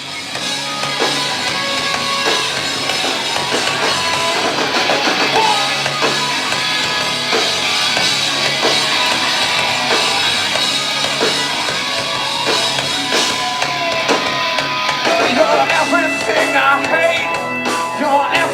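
Rock band playing live: a drum kit and electric guitars, loud and continuous with a steady beat.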